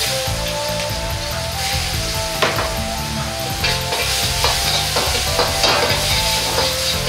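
Minced ginger sizzling in hot oil in a wok, stirred with a metal wok ladle that scrapes and knocks against the pan several times.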